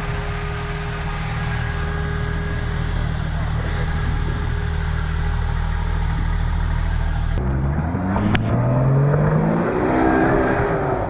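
Off-road vehicle engine running at a steady low speed, then, after an abrupt change about seven seconds in, an engine revving up with its pitch climbing for about three seconds before falling away near the end.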